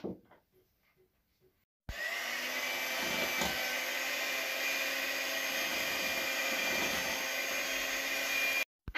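Electric hand mixer switched on about two seconds in, running steadily at one speed in a bowl of mixture, then switched off abruptly near the end.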